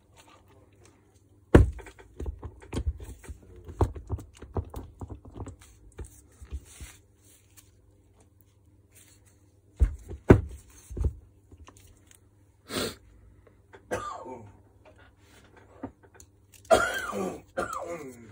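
Knocks and clicks of the Makita UD2500 shredder's motor parts being handled: the steel armature shaft knocking about inside the stator. A dense run of small knocks is followed about ten seconds in by a few heavier ones, and short rasping, scraping sounds come near the end.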